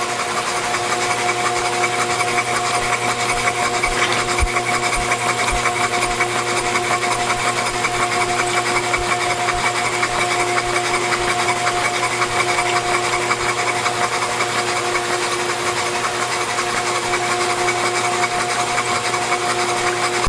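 Rebuilt Audi S4 V6, bored and stroked to nearly 3 litres, being run in on a Simtester engine stand with its valve covers off. It gives a steady mechanical hum with a fast, even clatter from the exposed camshafts and valvetrain.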